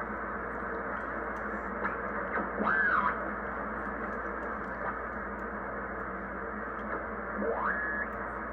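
Drake R-4B receiver putting out steady band hiss through its speaker as the dial is tuned, with two whistling tones sliding in pitch as it passes signals: one rising and falling about three seconds in, one rising and then holding near the end.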